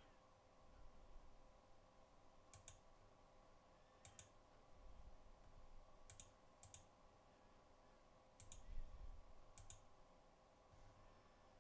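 Faint computer mouse clicks, about seven over the stretch, some in quick pairs, against near-silent room tone with a low electrical hum.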